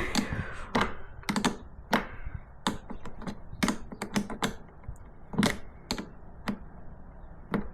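Irregular sharp clicks and taps of hardware and tools being handled against the plastic Packout box during a hinge repair with all-thread rod and locking nuts.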